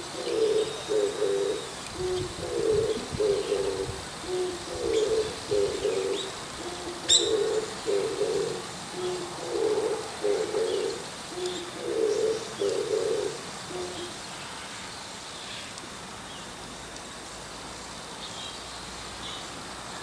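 Oriental turtle dove singing its low cooing song, a phrase of a short note and a doubled coo repeated about six times, stopping about 14 seconds in. Small birds chirp faintly in the background, and a single sharp click sounds about seven seconds in.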